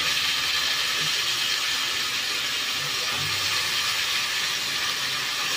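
Chicken neck and chicken feet sizzling in hot oil in a frying pan, a steady hiss while they brown.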